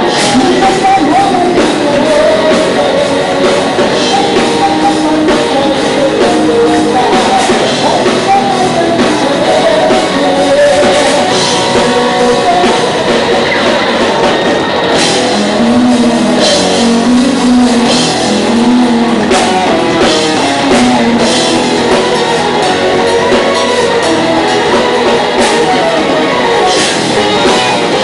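Loud live rock band playing: distorted guitars and a drum kit, with a melodic line moving in pitch over them, recorded close to the stage with a heavily compressed, saturated sound.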